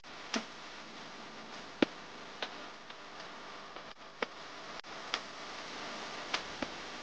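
Quiet outdoor garden ambience: a steady background hiss with a few sharp, irregularly spaced clicks.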